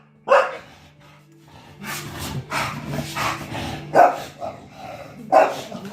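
A pit bull barking in a few sharp barks, with a busier noisy stretch between them. It is reacting to a pretended attack on a family member.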